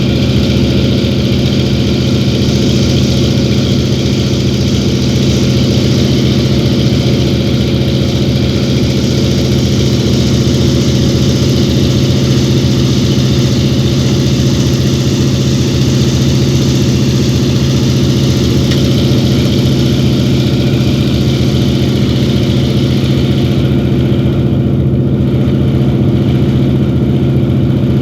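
Antonov An-2 biplane's nine-cylinder radial piston engine droning steadily in cruise flight, with a constant low pitched hum and hiss over it. The higher hiss drops away about 24 seconds in while the engine drone carries on unchanged.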